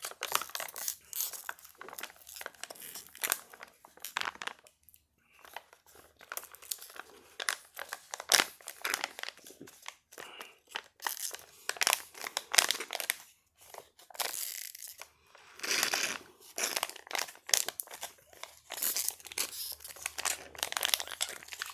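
Close crinkling and rustling of thin material being handled and crumpled: a run of irregular crackles with brief pauses about five and fourteen seconds in.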